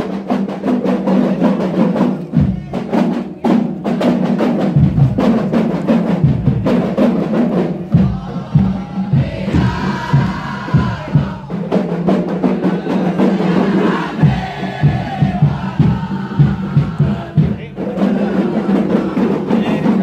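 Hand drums beaten in a fast, steady rhythm, with a group chanting along; the voices grow stronger about halfway through.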